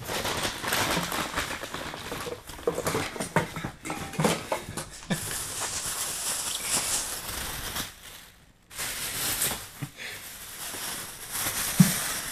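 Thin plastic bag crinkling and rustling in irregular bursts as a ferret burrows and thrashes underneath it, with a brief lull about eight and a half seconds in.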